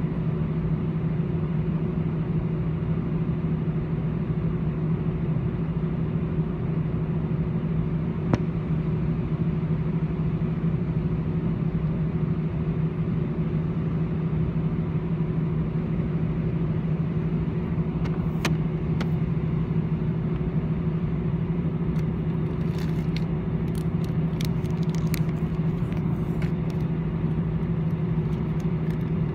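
Steady cabin drone of an Airbus A318 on the ground: a constant low hum with a steady tone above it over an even rumble. A single sharp click about eight seconds in, and a few faint clicks and ticks near the end.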